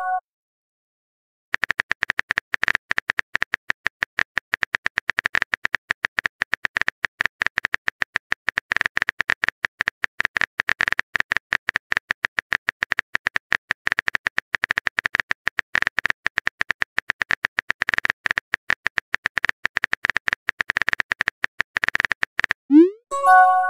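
Texting app's keyboard typing sound effect: a quick, unbroken run of key clicks starting about a second and a half in, as a message is typed out letter by letter. Near the end a short rising pop and a bright chime sound as the message is sent.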